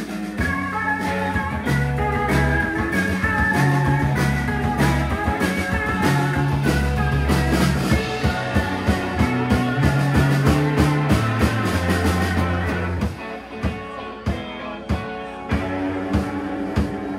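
Live rock band playing an instrumental passage with electric guitars, bass and drum kit. About thirteen seconds in the bass drops out and the drums carry on.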